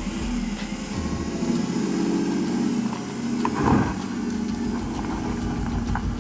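A motor vehicle's engine running, its low hum swelling to its loudest about three and a half seconds in and then easing off, like a vehicle passing on the road.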